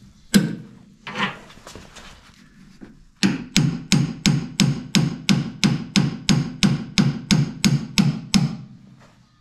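Claw hammer striking the metal end of a boat's propeller shaft, held with locking pliers, to drive the shaft out through the stern tube. Two single blows, then after a pause a steady run of about fifteen taps, about three a second.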